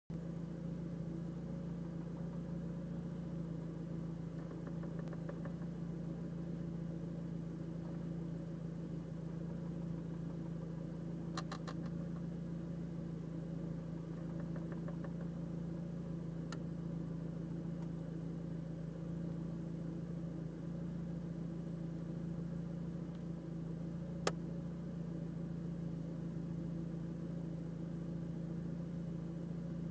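Seat Leon Cupra idling, heard from inside the cabin, with a steady engine hum. A few short runs of rapid ticking come and go over it, along with a couple of single sharp clicks, the loudest one late on. This is an intermittent ticking at idle whose cause the owner and mechanics have not found.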